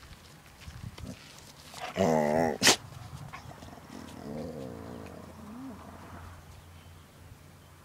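Dogs play-fighting: one gives a loud, wavering growl about two seconds in, a sharp click follows at once, and a quieter wavering growl comes about two seconds later.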